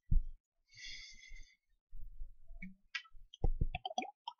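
Scattered clicks and light knocks of handling, with a sharp knock at the start and a short hiss about a second in. A quick run of small clicks follows in the last second and a half.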